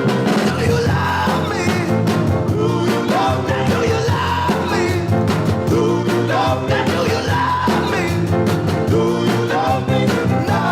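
Background rock music with singing and a steady beat.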